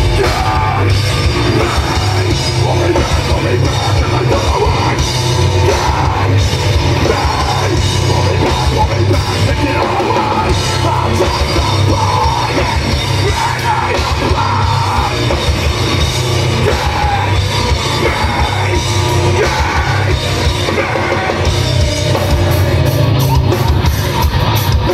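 Live metal band playing loud through a stage PA: distorted guitars, bass and drum kit, with a vocalist yelling and singing over them.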